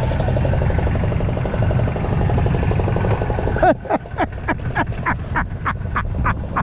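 A boat's engine runs steadily for the first three and a half seconds or so, then drops away suddenly. A quick, even series of short clicks follows, about four a second.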